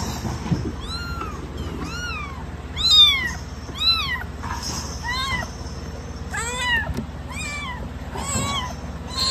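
Young kitten mewing over and over, about one high-pitched call a second, each rising and then falling in pitch; the loudest comes about three seconds in.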